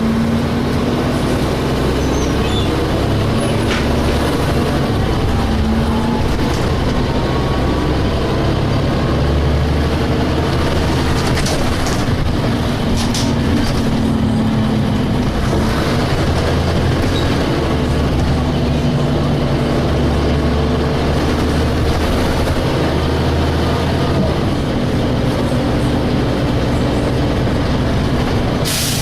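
Ikarus Polaris-bodied DAF SB220 bus's diesel engine running under way, heard from on board. The engine note slowly rises and falls, with a few sharp rattles and a brief hiss near the end.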